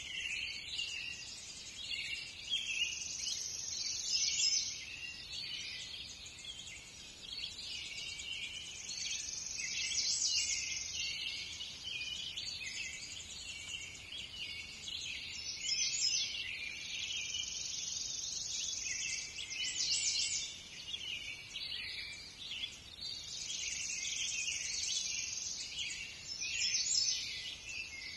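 Birds chirping and singing in a forest, with a high trill that comes back several times.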